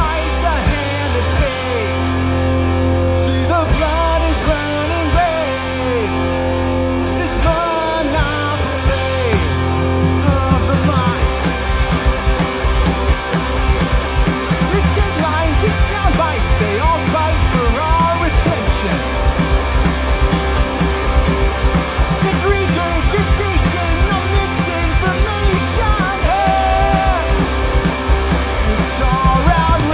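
A punk rock band playing live: electric guitars, electric bass and a drum kit, with a male lead vocal singing over them. The full band plays loud and steady throughout.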